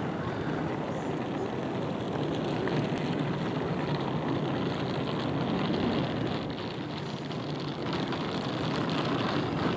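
Steady outdoor background noise: an even, low rushing hum with gentle swells and no distinct events.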